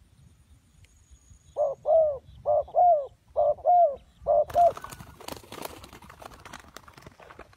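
Spotted dove cooing: four two-note phrases, each a short note followed by a longer one, over about three seconds. Then a spell of rustling with many sharp clicks.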